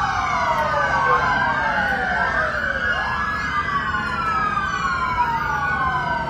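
Several police car sirens wailing at once, their rising and falling tones overlapping out of step with one another.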